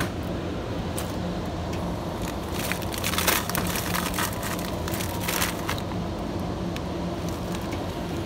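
Plastic packaging of frozen vegetables crinkling as it is handled, in two short bursts about three and five seconds in, over the steady low hum of supermarket freezer cases.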